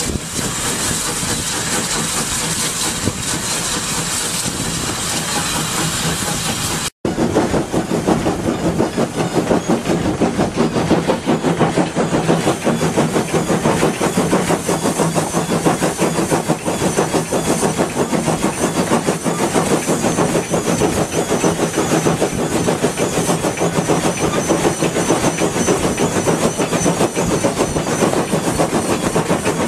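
Heritage-railway locomotive under way, heard from its cab: a steady running noise with a hiss. After a brief cut about seven seconds in, the engine and wheels run louder with a fast, even beat.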